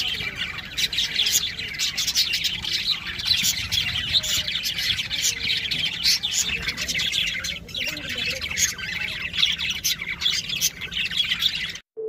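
A flock of budgerigars chattering, with many short chirps and squawks overlapping without a break. The sound cuts off suddenly just before the end.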